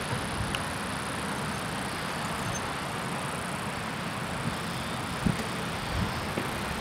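Steady outdoor ambience: an even rushing hiss with a thin, high, steady whine above it, and a few short low thumps, the loudest about five seconds in.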